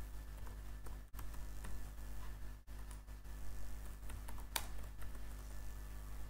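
Computer keyboard typing: scattered soft key clicks, with one sharper click about four and a half seconds in, over a steady low hum.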